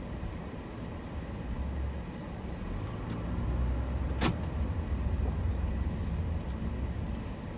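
Low, steady rumble of a car heard from inside the cabin, growing somewhat louder in the middle, with one sharp click about four seconds in.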